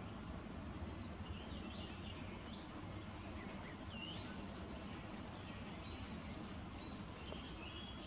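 Common nightingale singing: a string of varied phrases of whistles and quick repeated notes, some sliding up or down in pitch, over a steady low background rumble.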